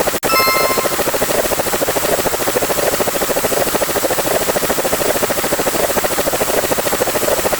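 Sound-effect track of a steady, rapidly pulsing mechanical drone, like a helicopter rotor. A short bright ding comes about a quarter second in.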